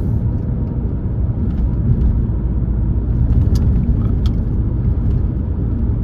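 Steady low road rumble of an Alfa Romeo on the move, heard inside the cabin: tyre and engine noise, with a couple of faint ticks about halfway through.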